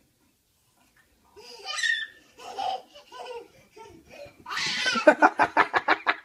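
Silence at first, then short high-pitched voice sounds about a second and a half in, and from about four and a half seconds in a person laughing hard in rapid, loud bursts.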